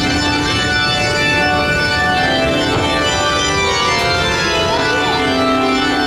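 Organ music playing long held chords that change every second or so.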